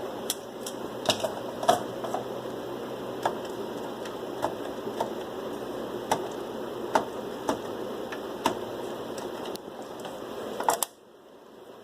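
Irregular sharp plastic clicks of the memory-slot retention clips on an HP Z420 workstation's motherboard being pushed down, releasing RAM sticks from their slots. The clicks come one at a time over a steady background hiss, which drops away suddenly near the end.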